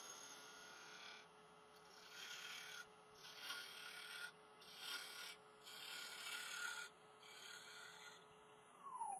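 Bowl gouge making light finishing cuts on a spinning Irish yew bowl on a wood lathe: about five short scraping passes with brief pauses between them. Near the end a falling whine follows as the lathe slows.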